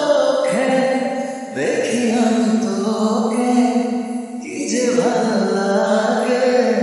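Slowed-down Bangla romantic pop song: a solo voice sings the melody over a sustained accompaniment, with brief breaths between phrases about one and a half and four and a half seconds in.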